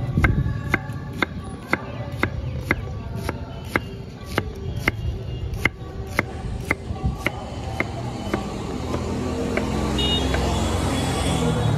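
Knife blade striking a wooden chopping board about twice a second as a starfruit is sliced. In the last few seconds traffic noise rises, with a brief car horn near the end.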